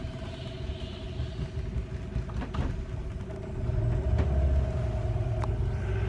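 Small river boat's outboard motor running steadily, a low rumble with a constant hum that grows louder about halfway through. A few light knocks from the phone being handled.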